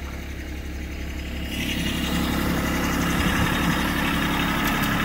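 Kubota compact tractor's diesel engine running steadily while the loader grapple works. It grows louder and fuller about a second and a half in.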